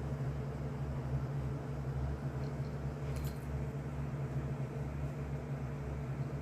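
Steady low hum of room background noise, like a fan or appliance running, with a faint click about three seconds in.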